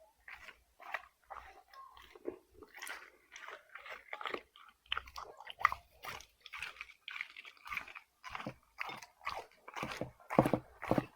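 Dog chewing food in a steady run of bites, about two to three a second, louder near the end.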